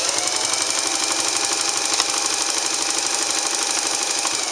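Japanese Belvedere straight-stitch sewing machine sewing forward through cotton shirting, its electric motor whirring over the fast, even clatter of the needle and feed. The motor picks up speed at the start, runs steadily, and slows near the end.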